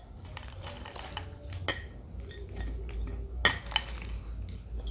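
Pieces of crushed cuatecomate (cirián fruit) being added to a jar: a few sharp clicks and knocks against the container over light scraping and rustling.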